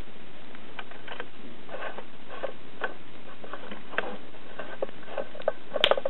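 Wood campfire crackling, with irregular pops and snaps. A quick cluster of louder pops comes near the end.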